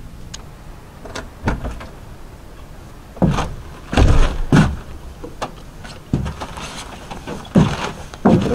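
Winter boots stepping on a wooden plank deck: a series of irregular heavy thuds, growing louder about three seconds in.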